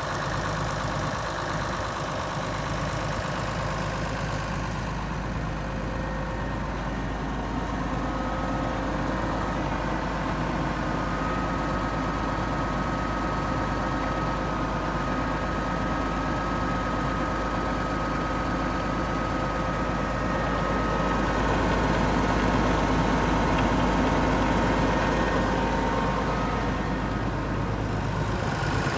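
Case IH 7210 Magnum tractor's six-cylinder turbo-diesel engine idling steadily.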